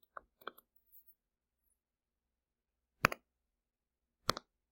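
Stylus taps on a tablet screen during handwriting: two faint taps right at the start, then two louder, sharp taps about three and four seconds in, with quiet between.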